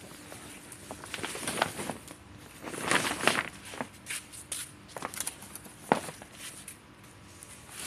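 Footsteps of a person walking on paving, irregular scuffing steps, with a sharp click about six seconds in.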